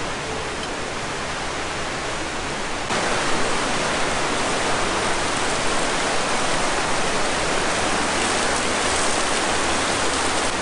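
Heavy tropical rain downpour, a steady dense hiss of falling water that jumps louder about three seconds in.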